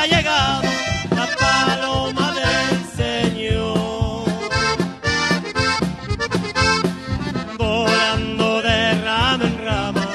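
Live band playing a praise song, the accordion leading the melody over acoustic and electric guitars, with a drum kit keeping a steady beat.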